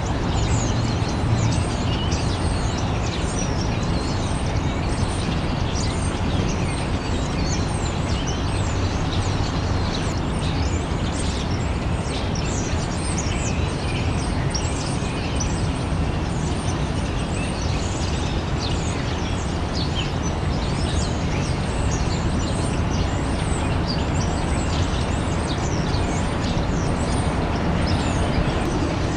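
Many small birds chirping over a steady rumble of distant city traffic.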